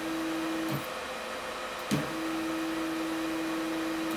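Unmounted 1232 oz-in stepper motor from a Longs CNC kit, jogging under Mach 3: a steady single-pitch hum that stops less than a second in. It starts again with a click about two seconds in and stops with a click near the end.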